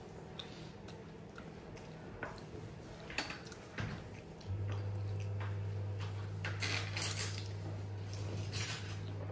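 Light clicks and scrapes of a fork and plates on a table as children eat, scattered irregularly. A steady low hum runs underneath and gets louder about four and a half seconds in.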